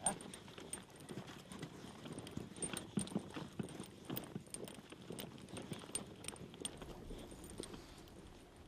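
A pack of beagles moving over leafy ground: an irregular patter of footfalls and rustling that gets quieter near the end.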